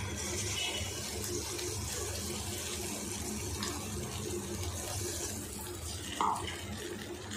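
Ground masala paste poured into hot oil in a kadai, sizzling steadily as it lands on the fried onions; the hiss fades after about five seconds. A brief higher-pitched blip sounds about six seconds in.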